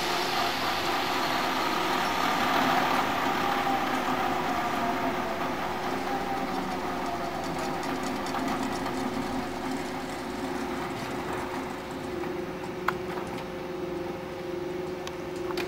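Eurocopter EC135 helicopter's turbine engines and rotors winding down: a whine falls in pitch and the noise fades over the first several seconds, leaving a steady lower hum. A single sharp click sounds near the end.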